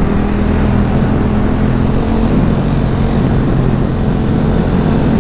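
Motorcycle engine running at a steady cruising speed, a low even drone, with wind rush over the rider's helmet-mounted microphone.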